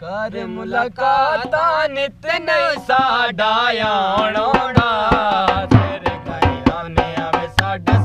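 A man singing a Saraiki folk song with a wavering, ornamented voice over sharp hand claps. A dhol drum joins about six seconds in with deep beats.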